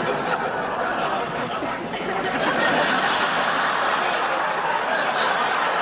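Studio audience laughing, one long, steady wave of laughter.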